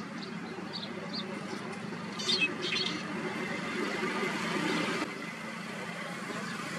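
Steady low background rumble from a distant engine, with a few short bird chirps in the first three seconds and the loudest of them about two and a half seconds in.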